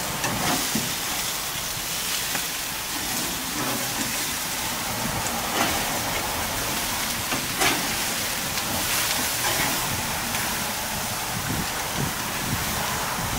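Hamburger patties sizzling on a grill grate over a hot charcoal fire, a steady hiss, with a few scrapes and clicks of a big metal spatula against the grate as the burgers are flipped.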